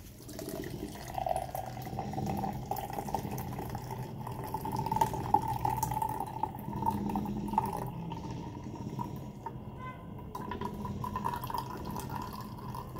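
A thin stream of green juice pouring from a mesh strainer into a glass beer mug and splashing into the juice already in it, its tone rising slightly as the mug fills.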